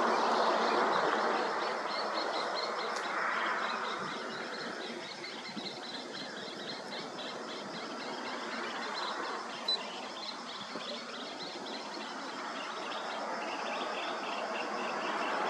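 A fast, high chirping repeated steadily, from a bird or insect in the roadside scrub. Under it a car drives off, its sound fading away over the first few seconds.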